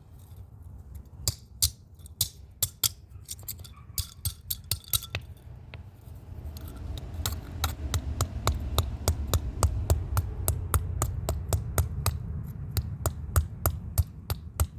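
A rock striking a plastic RFID lock keypad again and again to break it: a long run of sharp knocks, sparser at first, then about three a second. A low rumble builds under the knocks from about halfway.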